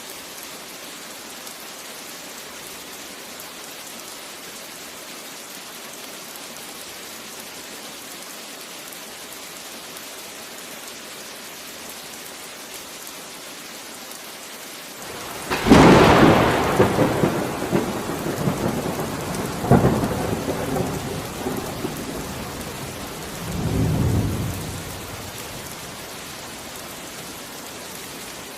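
Steady rain falling, then about halfway through a sudden loud thunderclap, a second crack a few seconds later and a lower rolling rumble that dies away into the rain.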